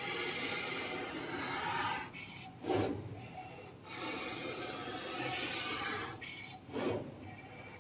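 CNC oscillating knife cutting and grooving a 9 mm polyester fibre acoustic board: a steady rasping buzz of the vibrating blade working through the felt. It breaks off twice, and each break holds a short, louder burst of sound, about three seconds in and again near the end.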